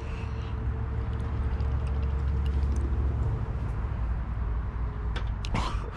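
A low, steady engine rumble with a faint steady hum above it, swelling towards the middle and easing off near the end.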